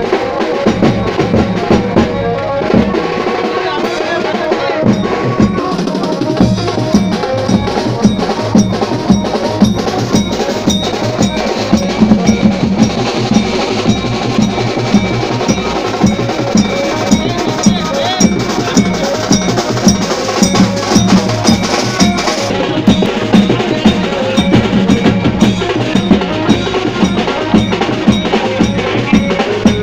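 Percussion music: drums beating a steady, fast rhythm with ringing metallic strikes.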